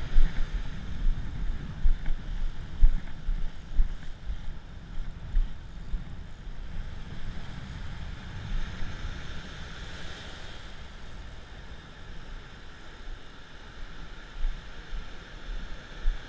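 Wind buffeting the microphone in gusts, loudest in the first few seconds, over breaking surf washing up the beach.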